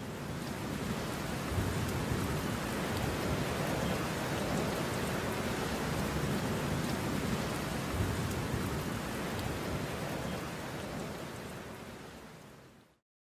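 Steady rain, fading out near the end.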